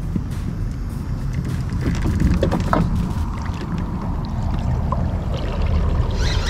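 Water and wind rumbling around a fishing kayak while a hooked fish is fought on a bent rod, with scattered small clicks and knocks and a couple of brief squeaks about two to three seconds in.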